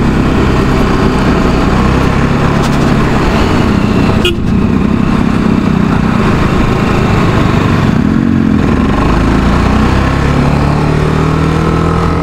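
Motorcycle engine running at road speed under steady, heavy wind rush on the microphone. There is a short high beep about four seconds in, and the engine note climbs near the end as the bike accelerates.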